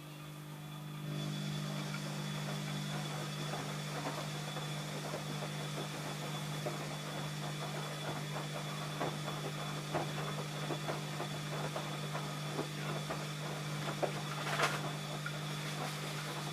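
ELIN A 100 E washing machine running: a steady motor hum that swells about a second in, with many small irregular knocks and rattles over it and a sharper knock near the end.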